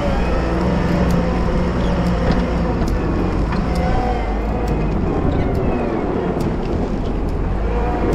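Wheel loader's diesel engine running steadily while plowing snow, with a whine that wavers in pitch and scattered sharp ticks.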